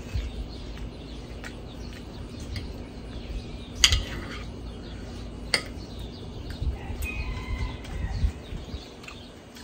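Knife and fork clinking against a plate while cutting steak: two sharp clicks stand out, about four and five and a half seconds in, among quieter scrapes.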